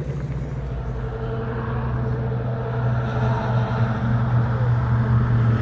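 A car engine running at steady low revs, a continuous low rumble.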